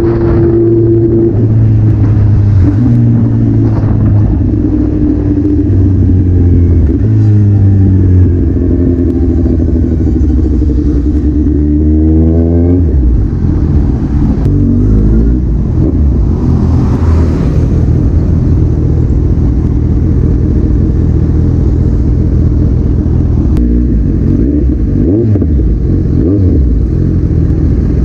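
Kawasaki Z1000 inline-four running through an open exhaust: stock headers, a custom midpipe and a single carbon-fiber SC Project canister, with no catalytic converter or resonator. The engine note rises and falls as the bike is ridden, with a steep rev climb a little before the middle.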